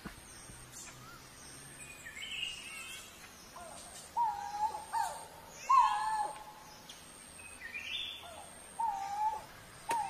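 Coral-billed ground cuckoo calling: several short, mellow hooting notes, each held briefly and then dropping in pitch, with fainter higher chirps in between.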